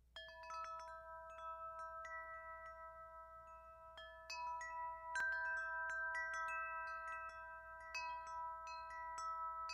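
Wind chimes ringing: irregular light strikes, several a second, each clear tone ringing on for seconds and overlapping the others. Quiet, a little louder from about four seconds in.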